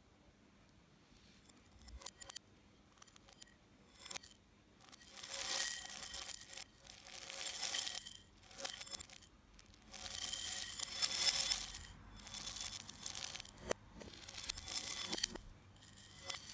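Dry chocolate puffed-rice cereal rustling and rattling against ceramic bowls as it is poured between them, played backwards. A few faint clicks come first; from about five seconds in, hissing rustles follow one after another, each a second or two long.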